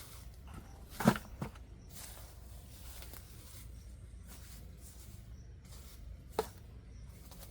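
A few sharp knocks over a low steady hum: a loud one about a second in, a fainter one just after it, and another near the end.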